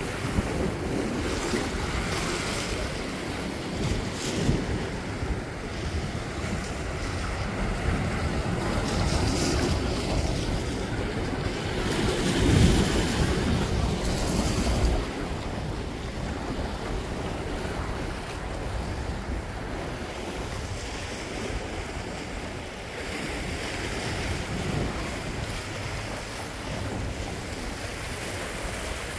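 Small sea waves lapping and washing over a rocky shore, with wind buffeting the microphone; the rumble of the wind is heaviest in the first half and eases about halfway through.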